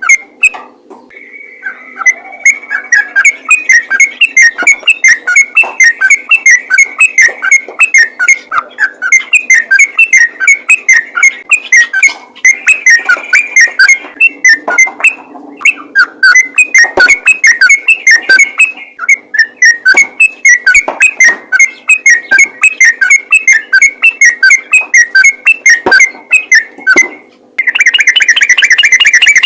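Yellow-vented bulbul singing fast, rapid-fire phrases of short whistled notes, strung together almost without pause. Near the end the song becomes a dense, continuous trill.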